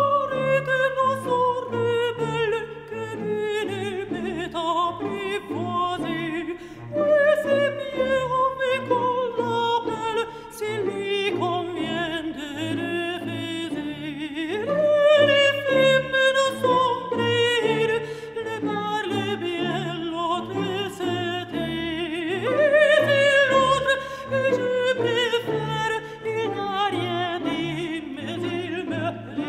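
Background music: a slow piece whose melody falls in long sustained phrases, starting high again twice.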